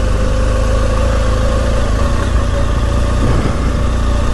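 BMW R nineT Scrambler's 1200 cc boxer-twin engine running steadily at an even pitch, with no revving.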